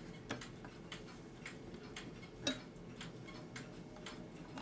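A mechanical clock ticking steadily, about two ticks a second, with one louder knock about halfway through.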